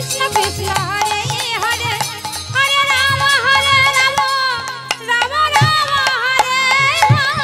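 Bengali kirtan music: a woman sings a wavering, ornamented melody over a harmonium, with kartal hand cymbals clashing and a drum beating the rhythm.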